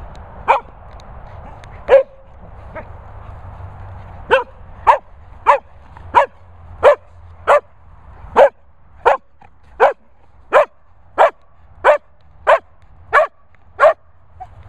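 Sprocker spaniel (springer–cocker cross) barking in single sharp barks: a couple near the start, then from about four seconds in a steady run of repeated barks, roughly three every two seconds.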